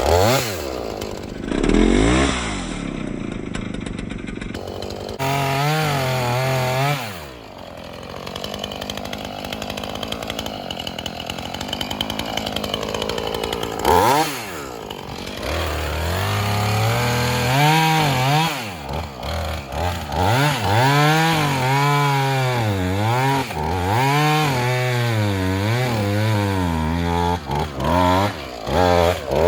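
Gas Husqvarna chainsaw running in fibrous palm wood, idling for a stretch and then revved up and down again and again in the second half. The chain and bar are clogging with palm fibre, which makes the chain stop after each rev.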